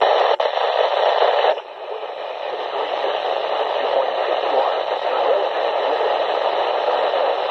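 FM static hiss from a Midland weather radio's speaker as it is tuned across the 162 MHz NOAA weather channels without a readable station. The hiss drops abruptly to a softer level about a second and a half in, then holds steady.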